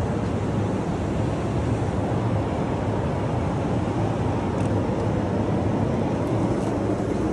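Steady cabin noise of a Boeing 737 MAX 8 airliner in flight: a low, even rush of airflow and engine noise heard from inside the cabin.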